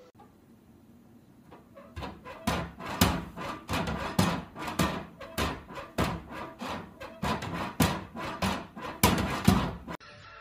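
A cat batting at a plastic cat flap in a door with its paws, knocking the flap against its frame over and over, about two knocks a second.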